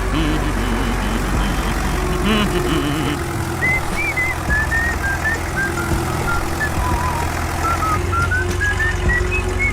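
A vehicle engine runs with a steady low rumble. A whistled tune of short notes stepping up and down comes in about a third of the way through.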